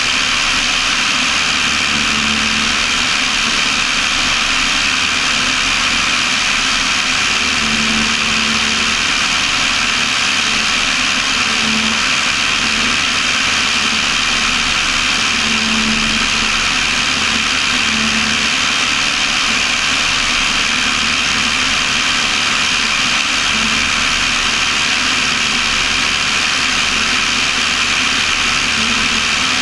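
Steady drone of a Cessna 172's piston engine and propeller with wind rush, heard from inside the cabin in cruise flight. It stays at an even level throughout, with a faint low hum that comes and goes.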